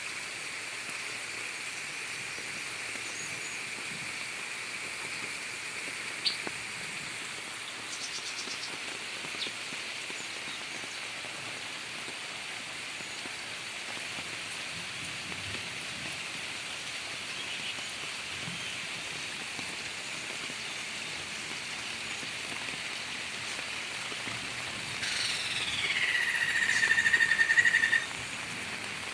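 Steady rain hiss with a few faint bird chirps. About 25 seconds in, a loud bird call of about three seconds slides down in pitch and then holds a steady note before cutting off.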